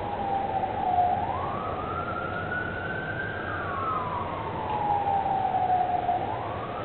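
Emergency-vehicle siren wailing in a slow rise and fall: it climbs about a second in, holds, falls away over a few seconds, and climbs again near the end.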